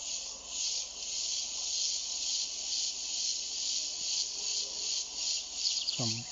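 High, pulsing chorus of insects, an even rhythmic shimmer of chirring that is the typical background sound of the place. A brief falling call cuts across it near the end.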